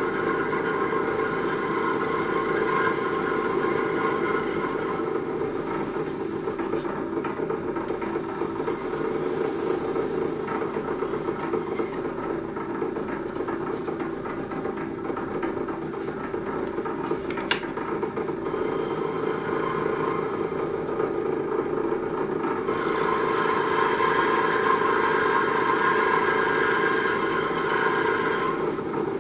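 A small electric saw running steadily and rasping through balsa wood. The cutting noise drops back for a few seconds at a time in the middle, with one sharp click, and is louder again near the end.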